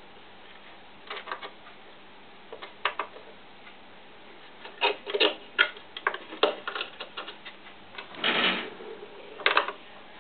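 Handling noises from a radio-controlled model helicopter: irregular clicks and taps of fingers on its plastic fuselage, battery pack and wiring, growing busier after the first few seconds, with a half-second scrape near the end.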